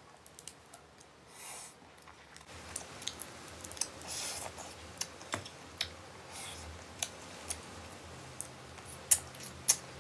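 Shellfish shell being picked apart by hand: scattered sharp clicks and small cracks, with a few louder snaps near the end.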